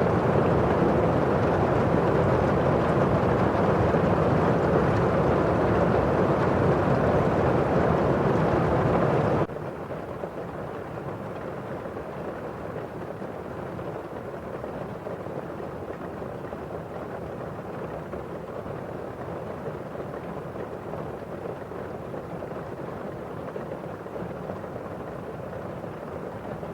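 Steady rain pattering on window glass, an even hiss with no single drops standing out. About nine seconds in it cuts abruptly to a quieter, duller rain sound.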